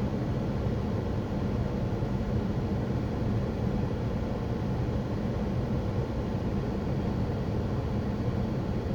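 Steady cabin noise inside a Pontiac Grand Prix: a low, even engine hum with no distinct knocks or changes.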